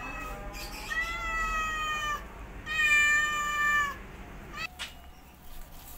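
Adult calico cat meowing: a short rising meow at the start, then two long drawn-out meows about a second and three seconds in, the second the loudest, and a brief meow shortly after.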